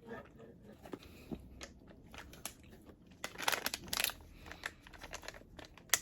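A person chewing a soft milk candy close to the microphone: irregular mouth clicks and smacks, thickest about three and a half to four seconds in.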